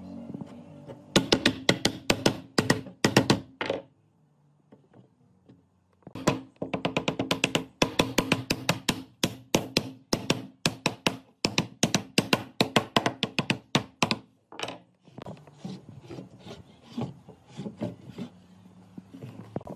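A hand tool working wood in quick, rasping strokes, several a second. It stops for about two seconds after the first few seconds, then carries on steadily.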